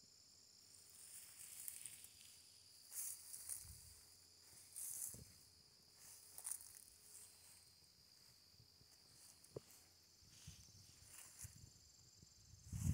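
Faint steady high-pitched trilling of insects, with soft rustling footsteps through dry vegetation coming and going every second or two.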